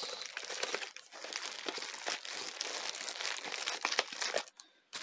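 Crinkling of plastic wrappers and rustling of a cardboard box as rapid test kit pieces are packed back into the box. The crinkling stops about half a second before the end.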